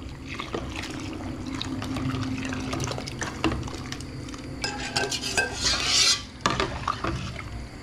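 Metal ladle stirring and clinking in a stainless steel pot of harira soup while a flour-and-tomato thickening mixture is poured in from a bowl. A short splashy pour comes about six seconds in, followed by a sharp knock.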